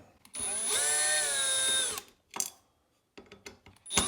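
Cordless power driver running in short bursts, backing out screws: the motor whines up to speed, holds for about a second and a half and winds down, then a second run starts near the end.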